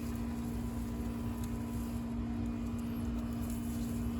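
A steady mechanical hum holding two low tones, over a low rumble.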